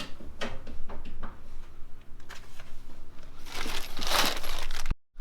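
Rummaging through a box of loose car parts: scattered clicks and knocks of parts being handled, then a louder rustle of paper or plastic a little before the end, which cuts off suddenly.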